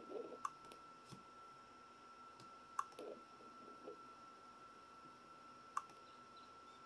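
Near silence: a faint steady high whine of recording noise, broken by a few sharp clicks a couple of seconds apart.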